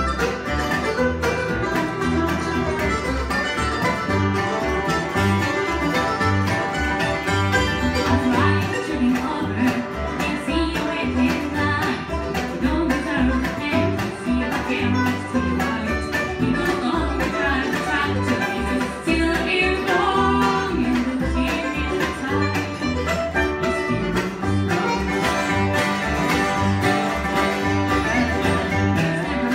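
Acoustic bluegrass band playing a song live, with plucked strings over a steady bass pulse.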